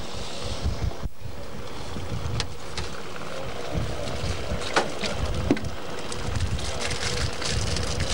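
Wind buffeting the camcorder microphone in irregular low rumbles, with a few sharp clicks.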